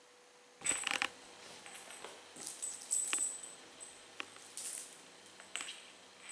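A kitten playing with a small plastic toy on a hard floor: irregular clicks, taps and light rattles, with a louder cluster of clicks about half a second in.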